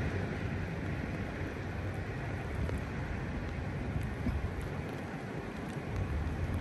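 Low rumble of a freight train receding just after its last car has passed, fading from louder at the start to a steady low haze. A few faint ticks of rain, and a low rumble of wind on the microphone that swells near the end.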